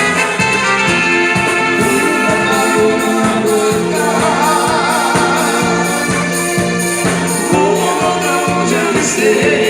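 Band music with a steady beat: regular percussion strokes under held instrumental notes and a wavering melody line.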